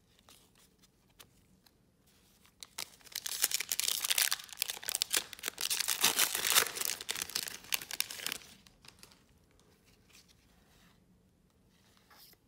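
A trading-card pack wrapper being torn open and crinkled, for about five seconds starting about three seconds in. Soft clicks of cards being handled come before and after it.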